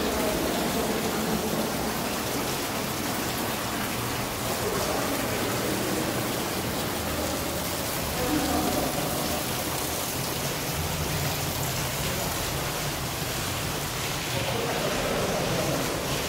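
Steady rushing of the Neglinka river's water flowing through its underground brick collector tunnel.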